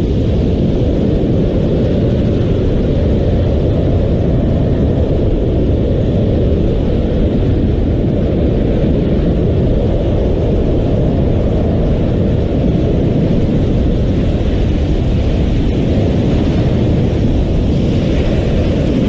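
Steady, loud rush of airflow buffeting a camera microphone during wingsuit flight, a deep unbroken roar with no distinct tone in it.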